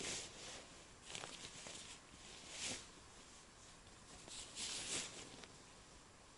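Faint, slow footsteps scuffing and crunching on a dirt trail, a few irregular steps a second or two apart, from a hunter walking under a heavy load of elk meat.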